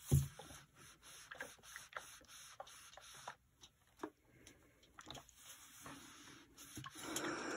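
Rowenta steam iron pressed and shifted over a cloth corner on crinkled foil, giving faint scattered scrapes and ticks. Near the end a steady hiss of steam starts as the iron begins steaming.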